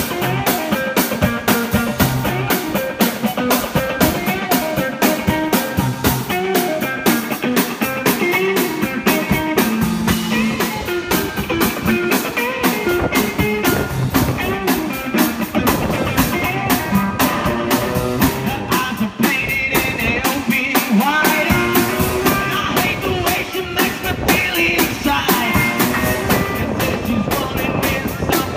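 Live rock-and-roll band playing: guitar over a drum kit keeping a steady beat.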